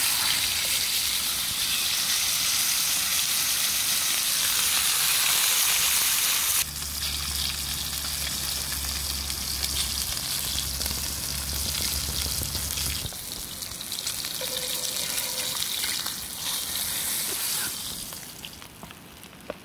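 Wagyu sirloin steak sizzling in hot oil in a cast iron skillet. The sizzle is loud and steady for the first several seconds, drops abruptly about seven seconds in, then carries on more quietly and fades near the end as the steak is lifted out of the pan.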